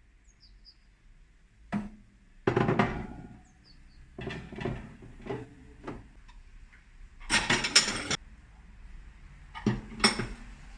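Kitchenware being handled: a series of irregular knocks and clinks of dishes and utensils, the busiest and loudest clatter about two-thirds of the way through.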